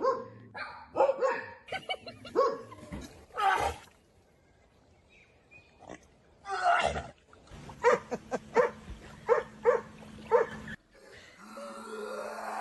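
A dog making a string of odd short barks and yelps, with a pause partway through, then a quicker run of evenly spaced short calls.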